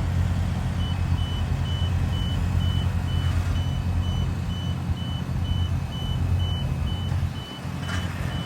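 Warning beeper on heavy construction equipment, a high-pitched beep repeating about two and a half times a second, starting just under a second in, over the steady low rumble of a diesel engine running.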